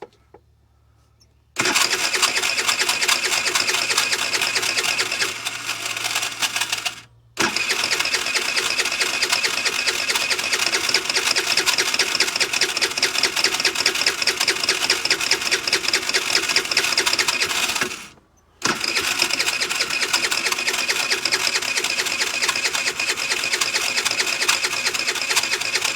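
Electric starter of a 50cc Ice Bear scooter cranking the engine in three long attempts, a fast, even whirring chatter with short pauses between tries; the engine never catches, a no-start that the mechanic suspects comes from a vacuum leak. He takes the starter's noise for its sprag clutch gears going bad.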